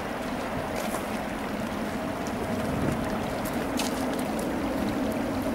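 Two General Electric GE90-115B turbofans of a departing Boeing 777-300ER at climb thrust: a steady rushing jet noise with a faint steady hum.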